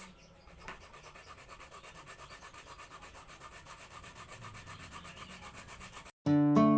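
Quick, rhythmic scraping or rubbing strokes, about six a second, at a low level. Plucked guitar music starts abruptly near the end.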